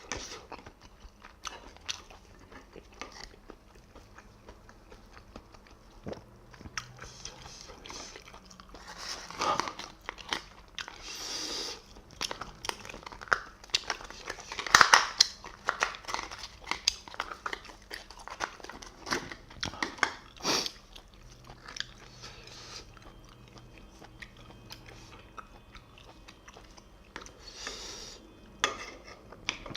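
Close-miked eating: wet chewing and lip smacking of spicy steamed scallops in chilli sauce, with many short clicks and smacks and a few louder bursts near the middle.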